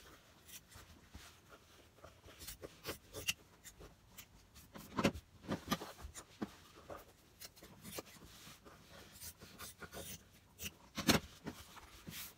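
Handling sounds of fabric being worked over a wooden board: soft rubbing and rustling with scattered light knocks, two sharper knocks about five seconds in and about eleven seconds in.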